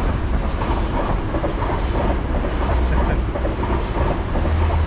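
A long Great Western Railway passenger train passing close by on a sea-wall line, with a steady heavy rumble of carriages and wheels on the rails.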